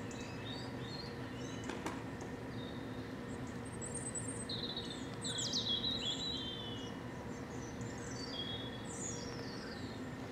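Wild songbirds chirping and trilling in short, high calls, busiest around the middle, over a steady low background hum.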